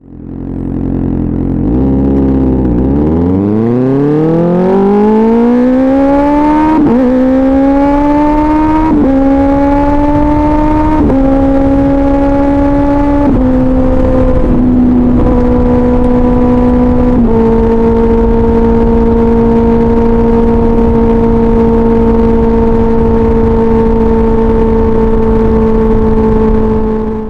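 Kawasaki Ninja ZX-6R's 636 cc inline-four with an SC-Project aftermarket exhaust, pulling hard from low revs and upshifting about six times, the pitch dropping at each shift and climbing less each time. It then settles into a steady cruising note.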